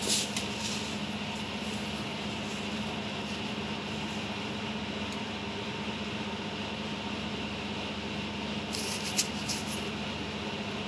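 Steady room hum, with a light knock right at the start and a few faint clicks about nine seconds in.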